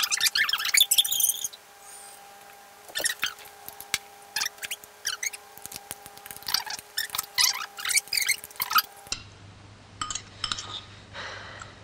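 Fast-forwarded film dialogue: the voices sped up into short bursts of high, squeaky chatter over a faint steady tone. About nine seconds in it cuts abruptly to the film's sound at normal speed: a low hum and a few light clinks of cutlery at a dinner table.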